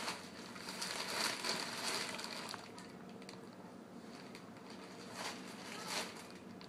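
Thin plastic bag crinkling and rustling as a cat shifts about inside it, in a run of rustles from about a second in to two and a half seconds, then two short rustles near the end.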